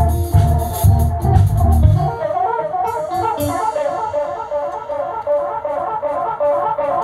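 Live band music. Drums and bass play until about two seconds in, then drop out, leaving a quick repeating melodic figure.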